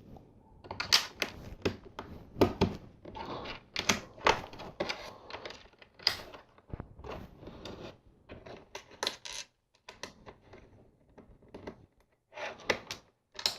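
Small plastic LEGO bricks clicking and clattering as pieces are handled and pressed together, in an irregular run of sharp clicks and light knocks with short pauses.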